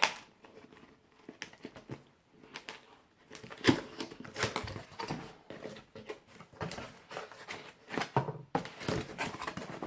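Cardboard box being opened and its contents handled: irregular rustles, scrapes and taps, with a sharp knock a little over three and a half seconds in.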